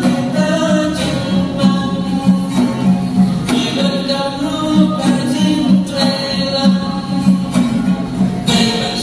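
A Khasi song sung by a small mixed group of singers, accompanied by duitara, guitar and ksing drum, with a steady beat of about two pulses a second.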